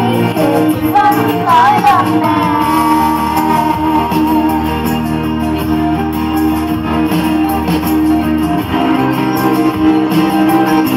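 Girls singing a Thai pop song into microphones over a backing track played through PA speakers; a long sung note with vibrato comes about two to four seconds in, after which the backing music carries on with little voice.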